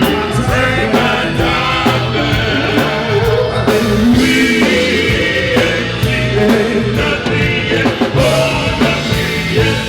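Live band playing an upbeat song with singing over a steady beat.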